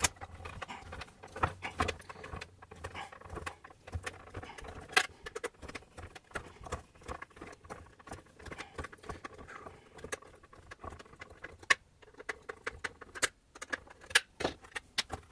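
Irregular small clicks and scrapes of a screwdriver turning out T20 screws from the metal bottom plate of a Husqvarna Viking Designer SE sewing machine, mixed with light knocks from handling its plastic housing.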